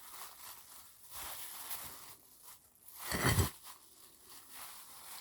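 Quiet handling noises as frozen chicken is worked loose from a plate, with one louder short crinkling scrape about three seconds in.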